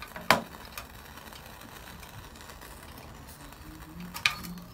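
Metal burner tray of a Wilesco D305 toy steam fire engine being pushed in under the boiler: a sharp metallic click shortly after the start and another about four seconds later, with faint steady background noise between.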